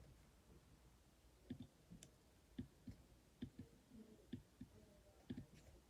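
Faint, irregular clicking from a computer being worked, about ten short clicks over several seconds, often in close pairs, against near silence.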